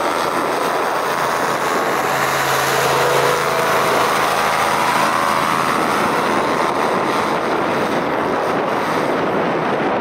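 Christy 463 PC hovercraft running close by, its thrust and lift engines and ducted propeller making a loud, steady rushing drone with an engine hum in it.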